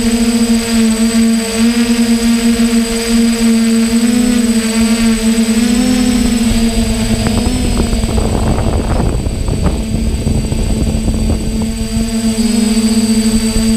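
DJI hexacopter's electric motors and propellers humming steadily, heard close up from the camera mounted on the drone, the pitch wavering slightly as it manoeuvres. About eight seconds in, a rough rushing noise covers the hum for a few seconds before the steady hum returns.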